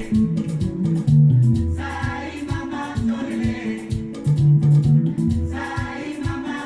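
Congolese soukous music: plucked guitar and bass guitar over a steady beat, with singing coming in twice.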